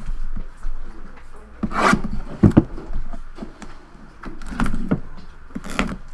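Hands opening a cardboard trading-card box: irregular rubbing and scraping of cardboard and wrapping, with several sharp knocks.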